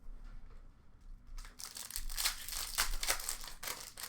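Foil wrapper of a hockey card pack crinkling as it is torn open, in irregular crackles that grow denser about halfway in.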